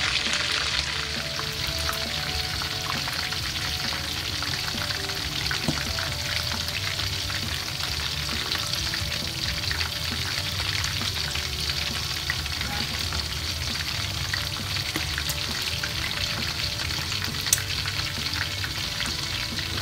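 Chicken legs deep-frying in hot oil in a wok: a steady sizzle of dense fine crackling, with one sharper pop near the end.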